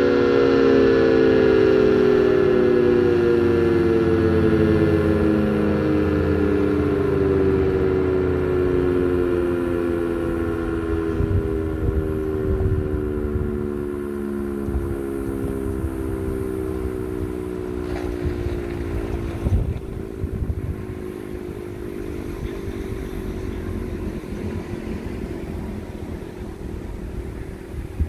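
Sentry 16V1T-B tornado siren winding down at the end of its one-minute attack signal: its tone slides slowly and steadily lower and fades as the rotor coasts to a stop. Low wind noise on the microphone lies beneath it.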